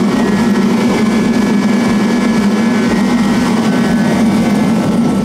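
Portable diesel forced-air space heater running at full output: a loud, steady rush of fan and burner over a strong even hum, with faint high whining tones.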